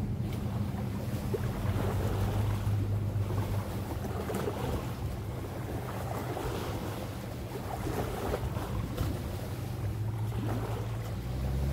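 Small waves lapping at a lakeshore, with wind, over the steady low hum of a distant engine.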